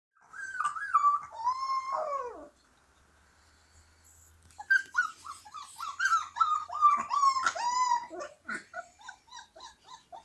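Husky puppy howling. A few wavering calls, the last sliding down in pitch, then a pause of about two seconds, then a run of short yelping howls that turn into softer, shorter yips near the end.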